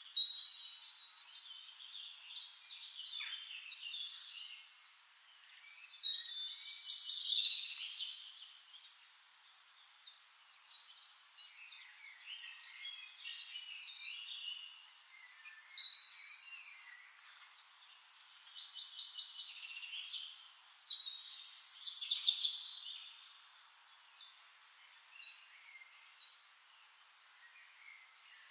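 Songbirds singing: louder song phrases of a second or two come at intervals, near the start and again about 6, 16 and 21 seconds in, with quieter chirps and trills between.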